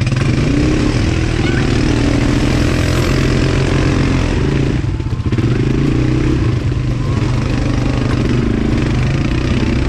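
ATV engine running steadily while riding, with a brief dip about five seconds in.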